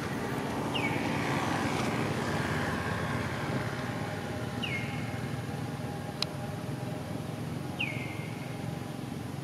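Steady outdoor rumble, with a short high chirp that drops in pitch and then levels off, repeating about every three seconds. One sharp click about six seconds in.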